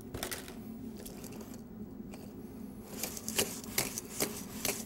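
Handheld shadow puppets on rods tapping and brushing against the screen and the bed cutout as the monkey figures are bounced up and down: a soft rustle at first, then sharp taps about two a second from about three seconds in, over a steady low hum.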